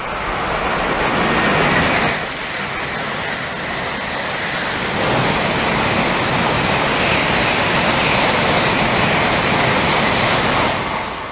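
Shinkansen high-speed trains passing at speed: a loud, steady rushing noise of wheels and air. It swells about two seconds in, eases briefly, then swells again as a second train passes, and starts to fall away at the very end.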